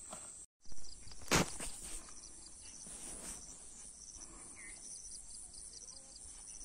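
Field insects, crickets among them, chirping in a steady high-pitched pulsing drone, with two loud knocks or rustles about a second in.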